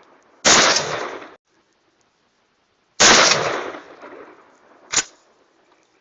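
Two single rifle shots from a Ruger Mini-14 semi-automatic, about two and a half seconds apart, each with a long rolling echo. A shorter, sharp crack follows about five seconds in.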